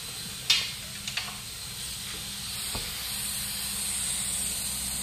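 Compressed air hissing steadily. A few sharp clicks or taps sound in the first three seconds, the loudest about half a second in.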